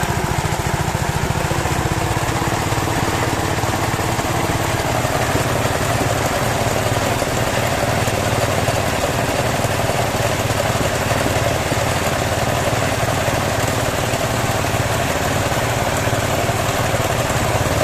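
Small water-pump engine running steadily, driving a well-drilling rig through a Suzuki Carry transmission.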